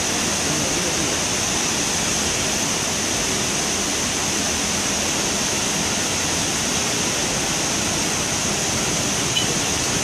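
Waterfall swollen with brown floodwater, pouring down a rock face as a steady, unbroken rush of falling water.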